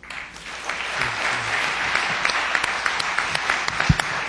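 Audience applauding, a dense patter of many hands clapping that starts suddenly. A single low thump comes near the end.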